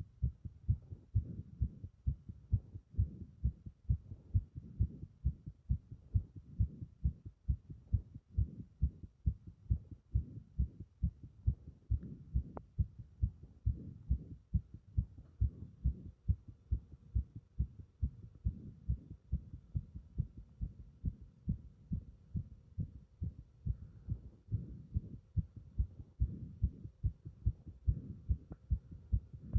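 Fast heartbeat with strong beats: a regular, unbroken run of low thumps.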